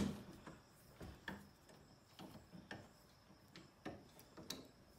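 Light metallic clicks, about eight spread unevenly, from a bench vise being turned closed on a steel chain link.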